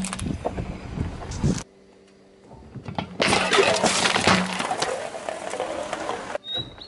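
Car tyre rolling over and crushing full aluminium drink cans: crackling crunches with the hiss of the drink spraying out as the cans burst. One crunching run stops abruptly after about a second and a half. After a short lull, a longer, dense crunching run of about three seconds follows.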